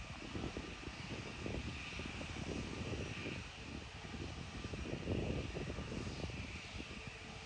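Distant Portuguese Air Force airplane's engines running as it flies low on approach to land: a steady high whine over an uneven low rumble.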